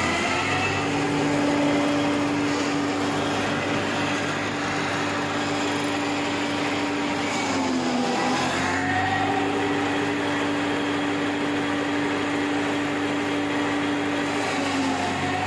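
Silage baling machine running with a steady droning hum. About eight seconds in, its pitch sags briefly and recovers as it labours under a load of green fodder.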